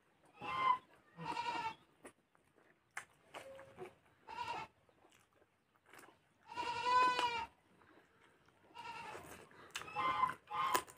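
A goat bleating over and over, about six wavering calls with a longer one in the middle of the run.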